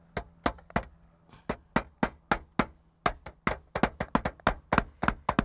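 Claw hammer driving roofing nails through metal skylight counter flashing into the roof: a quick run of about twenty sharp blows, roughly four or five a second, with a short break about a second in.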